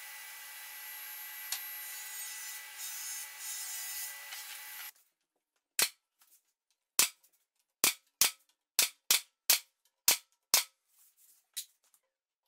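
Table saw running, stopping about five seconds in. Then about ten sharp, single shots from a nail gun driving nails into a wooden frame, spaced irregularly over roughly six seconds.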